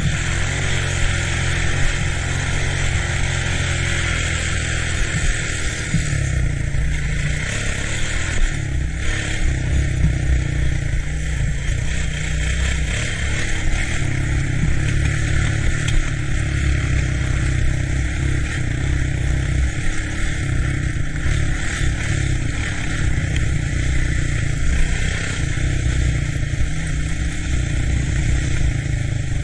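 ATC three-wheeler engine running while being ridden, its note shifting up and down with the throttle, over a steady rushing noise.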